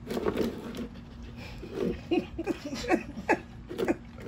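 A dog eating up close, chewing and licking up food from a metal tray and the ground in a string of short smacks and crunches.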